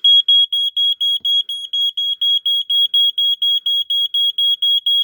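Late-1980s Dicon-made piezo smoke alarm sounding its high-pitched horn in rapid pulses, about six a second. It is in full alarm after being set off with aerosol test smoke.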